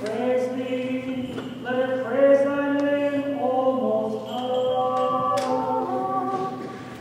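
Church choir singing Orthodox liturgical chant a cappella, in several-part harmony with long held notes; it dies away near the end.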